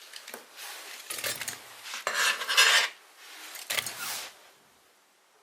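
Chunks of cut snow pear being scraped and tipped into a pot: four short rasping scrapes with a clatter of pieces against the pot, the loudest a little after two seconds in.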